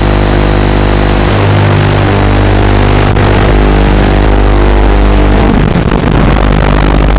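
FPV quadcopter's electric motors and propellers running with a loud, steady hum whose pitch shifts a couple of times.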